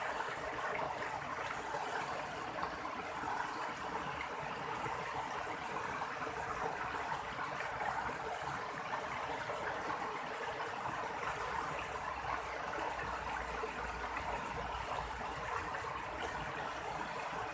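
River water flowing steadily over a shallow bed, a constant even rush.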